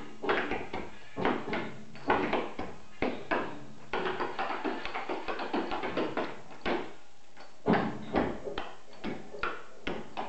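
Rhythmic tap-dance steps: hard-soled dance shoes striking a plywood floor in quick groups of sharp clicks, with a short pause about seven seconds in, over faint music.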